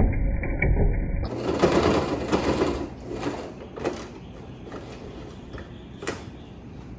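Sewing machine stitching through heavy duck canvas, running for about the first second and then stopping. Then the stiff canvas rustles as it is bunched and moved, with a couple of sharp clicks.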